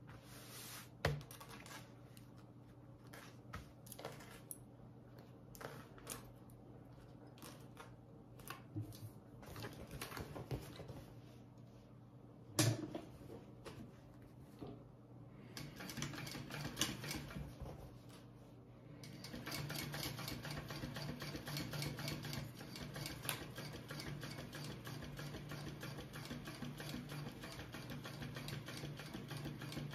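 Kingmax GC0302 industrial sewing machine stitching vinyl. The first half holds scattered clicks and taps as the vinyl is handled and positioned under the foot, over a steady low motor hum. About two-thirds of the way in, the machine starts sewing steadily with rapid, even ticking.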